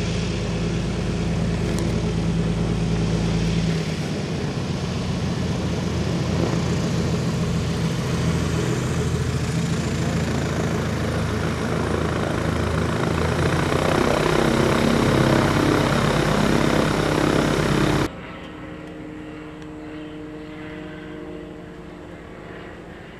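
Propeller aircraft engine running steadily, swelling slightly before cutting off abruptly about eighteen seconds in. A much quieter steady rush follows.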